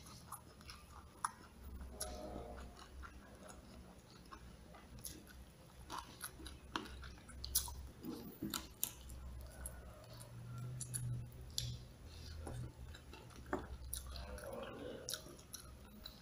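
Close-up eating sounds: chewing a mouthful of rice and smashed fried chicken with chili, with scattered short clicks and smacks.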